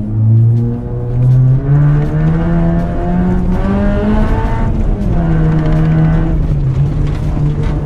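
Acura RSX's 2.0-litre four-cylinder engine pulling hard on a dirt rallycross course, its pitch climbing for a few seconds, dropping about five seconds in and then holding steady, with tyre and gravel noise underneath.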